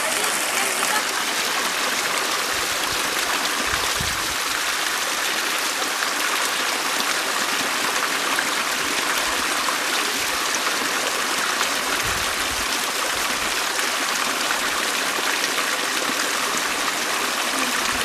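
Steady rush of falling water: a spring's spout and a small waterfall splashing onto rocks.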